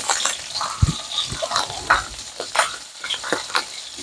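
A plastic spice packet crackling and rustling as cayenne pepper is shaken out of it, with a couple of dull knocks about a second in. Pork ribs sizzle steadily in a frying pan underneath.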